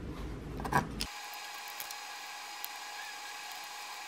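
Fingers handling a small printed circuit board, with rumbling handling noise and one click just under a second in. The sound then cuts to a faint, steady electrical whine of several high tones with a few soft ticks during soldering.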